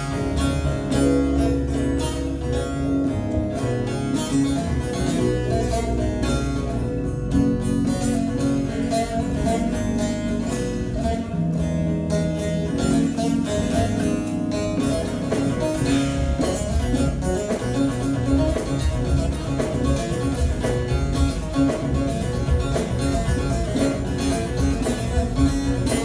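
Instrumental break of a Turkish folk song: a bağlama (saz) picked in quick runs of notes over electronic keyboard accompaniment holding low sustained notes.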